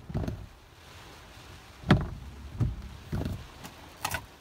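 Tropical-storm wind gusting against a parked car, heard from inside the cabin: irregular low thumps and surges, a few with a brief hiss of wind-driven rain.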